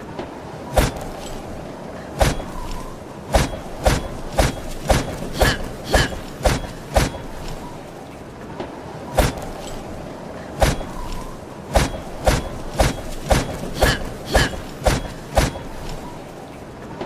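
Short sword struck repeatedly: about twenty sharp hits, some in quick runs of two or three a second, with a pause of a couple of seconds in the middle.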